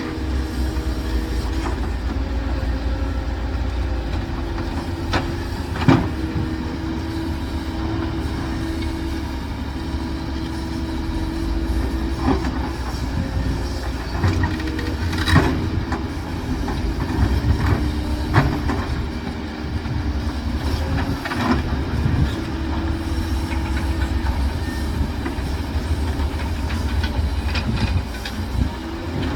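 Heavy diesel construction machinery running steadily with a deep rumble, broken by a few sharp metallic clanks.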